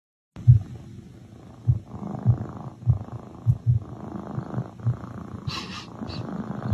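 Domestic cat purring close to the microphone, a steady rumble that swells and fades with each breath in a regular rhythm. A brief scratchy rustle about five and a half seconds in.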